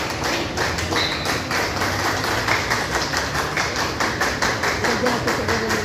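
Spectators clapping in a fast, even rhythm of about four claps a second, over faint crowd voices.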